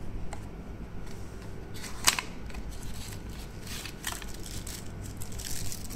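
Small cardboard boxes being handled and shifted on a desk: rustling and scraping, with a sharp knock about two seconds in and a lighter one about four seconds in.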